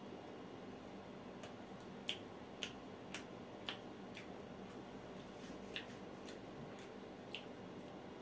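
Chewing of grilled mutton sekuwa: a string of sharp, wet mouth clicks and smacks, about six of them at uneven intervals, over a steady low hum.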